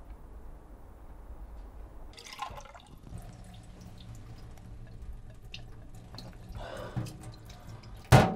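Water splashing from a kitchen tap in two short bursts, with small drips and ticks between and a low steady hum behind. A single sharp knock near the end is the loudest sound.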